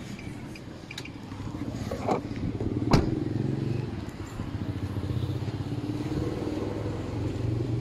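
A sharp knock about three seconds in, after a smaller one a second earlier, then an engine running steadily with a low, fast pulsing.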